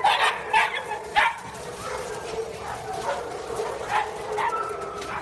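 A dog yipping and barking in short calls: three loud ones in the first second and a half, then softer yips about once a second.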